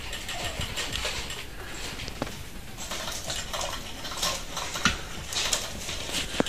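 Irregular light clicking, tapping and rattling of an electric butterfly cat toy's plastic wand and feathers as a cat bats at it, over a steady hiss. The sharpest clicks come about five seconds in and near the end.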